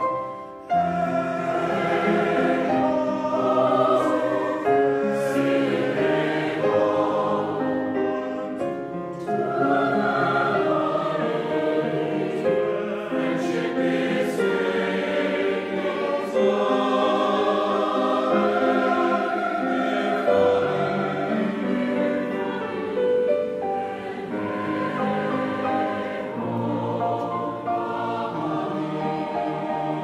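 Large mixed choir singing a choral piece in full harmony, with long held notes. The voices break off briefly less than a second in, then come back together.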